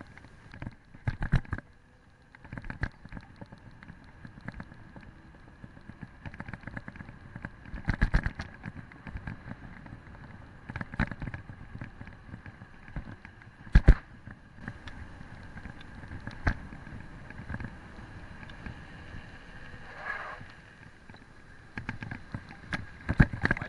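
Mountain bike rolling down an asphalt street, its frame and handlebars rattling and clunking over bumps in the road, heard through a handlebar-mounted camera. Irregular sharp knocks stand out from the steady rumble, the loudest about 14 seconds in and again near the end.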